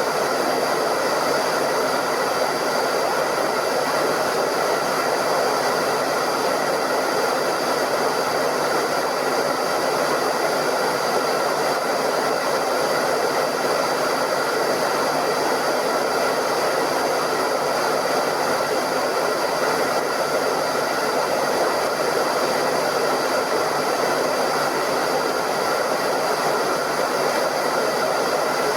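Hairdryer running continuously, a steady even blowing whoosh with a faint motor whine that does not change.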